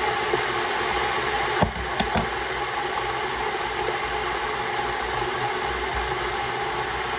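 Steady rushing noise with a low hum under it, with a few sharp clicks close together between about one and a half and two seconds in as a small tea packet is handled.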